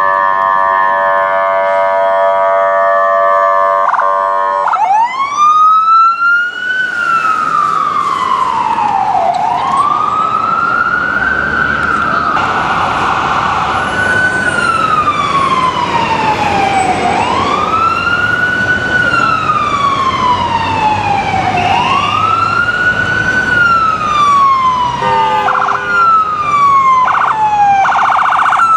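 Emergency vehicle, an ambulance: a steady horn blast that cuts off after about five seconds, then an electronic wail siren rising and falling slowly, one cycle about every four and a half seconds. Short horn blasts sound near the end.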